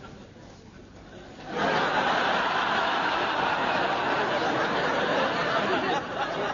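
Studio audience laughing, breaking out suddenly about a second and a half in and carrying on steadily, with a brief dip near the end.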